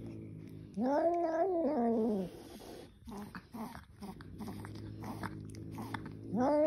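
An angry cat growling low and steadily, breaking into a long drawn-out yowl that rises then falls about a second in, and starting another loud yowl near the end.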